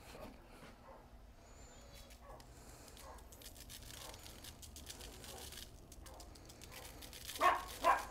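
Spice shaker rattling faintly as dry rub is shaken over a raw fish fillet. Near the end, two short loud sounds about half a second apart.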